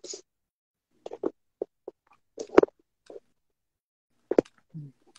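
Handling noise from a phone held in the hand and swung about: a string of short knocks and rubs on its microphone, louder about halfway through and again near the end.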